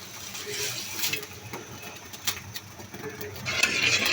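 Cooking in a pan: a few sharp utensil clicks, then a burst of sizzling about three and a half seconds in as food meets the hot oil. Faint bird calls sound in the background.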